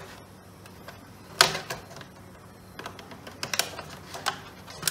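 A blade cutting a slot in corrugated plastic drainage pipe: a few sharp clicks and crackles as it snags on the ridges. The loudest comes about a second and a half in, and smaller ones follow near the end.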